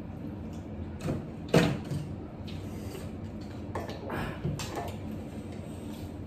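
Utensils knocking and scraping against plates and bowls as people eat, with one sharp, loud knock about a second and a half in and a few softer clinks around four to five seconds.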